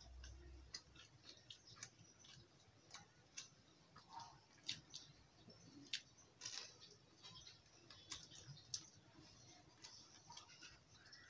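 Faint, irregular crunches and mouth clicks of someone chewing fried bread pakoda.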